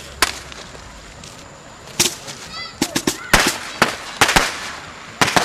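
Fireworks going off in a string of sharp, irregular bangs and pops, about a dozen in all, several in quick clusters near the middle.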